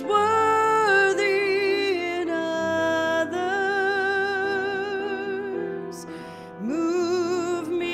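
A woman singing slow held notes with wide vibrato, accompanied by piano. About six seconds in she breaks briefly, then slides up into the next long note.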